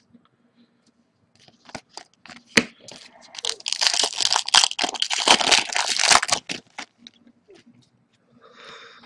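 A foil hockey card pack wrapper being torn open by hand. A few light crinkles and clicks lead into a few seconds of loud ripping and crinkling in the middle, with a faint rustle near the end.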